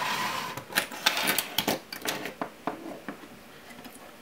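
Hands shifting a floodlight lamp and setting a graphics card down on a desk: a short scrape, then a quick run of clicks and knocks over the first three seconds or so, dying away near the end.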